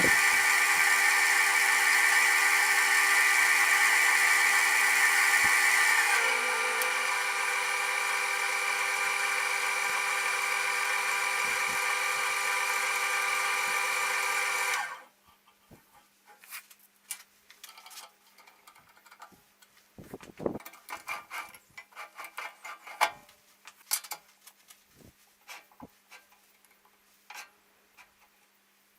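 Wood lathe running with a steady whine of several tones, a little quieter after about six seconds, then stopping abruptly about halfway through. Faint scattered clicks and knocks follow.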